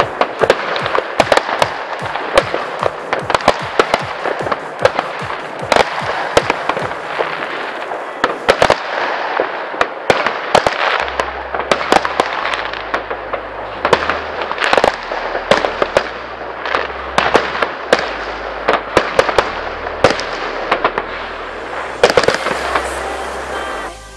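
Fireworks going off in a dense, continuous barrage, with many sharp bangs standing out throughout. From about halfway, a thudding electronic bass line comes in underneath.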